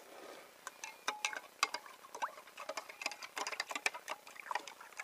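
Quick, irregular clicks and light taps, several a second, from a glass jar of drained battery acid while baking soda is worked into it to neutralize the acid.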